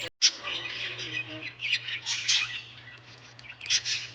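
Small birds chirping in short, irregular calls over a steady low hum.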